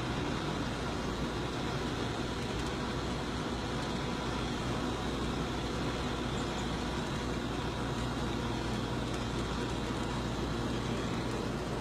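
Steady engine and road noise of a moving vehicle, an even low drone with hiss and no sudden events.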